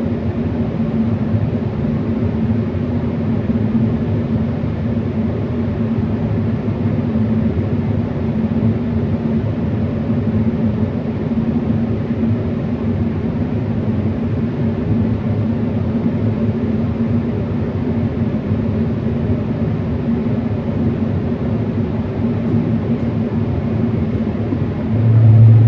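Steady low mechanical drone, like a machine running continuously in a workshop; a deeper, louder hum joins near the end.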